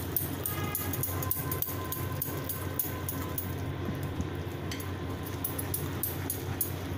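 Small wire whisk stirring gram flour into oil and water in a glass bowl, the wires ticking and scraping against the glass several times a second, over a steady low hum.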